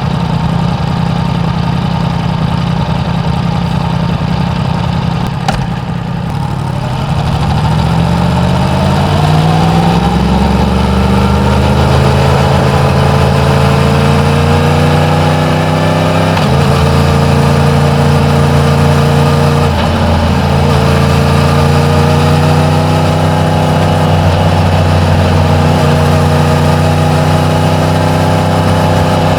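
Yamaha MT-10's crossplane inline-four, on its stock exhaust, running just after starting. The engine note climbs slowly a few seconds in, then holds steady with small shifts in pitch.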